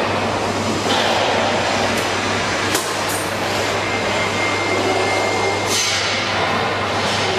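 Robotic arc welding: a steady crackling hiss over a constant low hum, with a few sharp ticks about two to three seconds in.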